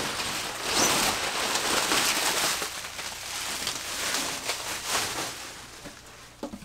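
Bubble wrap and plastic sheeting being pulled off and crumpled by hand, a dense crinkling rustle. It thins out after about three seconds into a few scattered crackles.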